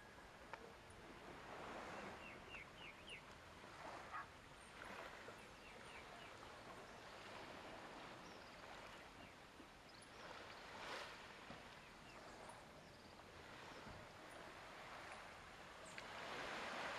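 Faint outdoor ambience: a soft wash of background noise with a few short bird chirps, a quick run of them about two to three seconds in.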